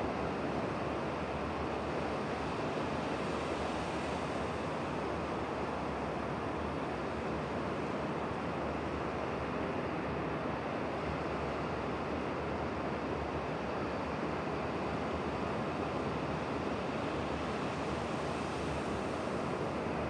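Distant surf breaking on the shore, heard as a steady, even rush of sea noise without distinct wave swells.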